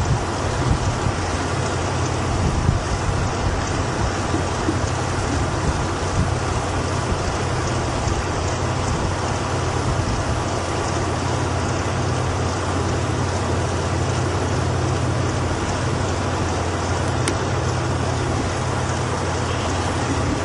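Steady drone of a car driving: a constant low engine and road hum under an even rushing hiss.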